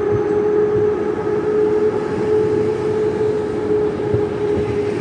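PKP Intercity passenger coaches rolling past close by, the wheels rumbling on the rails with a few low knocks. A steady pitched tone with overtones runs over the rumble.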